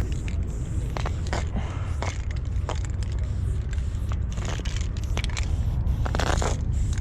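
Short hisses of an aerosol spray paint can, the longest near the end, over a steady low rumble.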